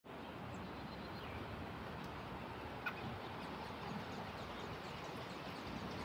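Steady rushing hiss with faint, thin high peeps of nestlings begging in the nest, and one sharp click about three seconds in.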